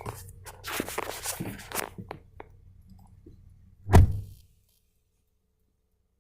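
A low steady engine hum with a string of sharp knocks and clicks over it, then one heavy thump about four seconds in, after which all sound cuts off to silence.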